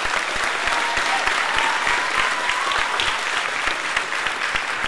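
Audience applauding, a dense run of many hands clapping. One long high call from someone in the crowd rides over it for about two seconds, rising at its end.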